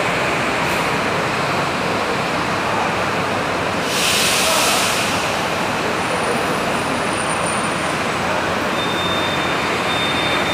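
Diesel bus on a Mercedes-Benz OF-1722M chassis running at low speed as it pulls up to a platform, under the steady din of a busy bus terminal. About four seconds in, a burst of compressed-air hiss lasts about a second, typical of a bus's air brakes or doors, and a thin steady high tone starts near the end.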